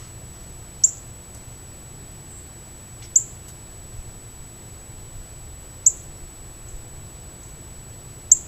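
A bird gives short, sharp, high chirps four times, a couple of seconds apart, over a faint steady high-pitched whine.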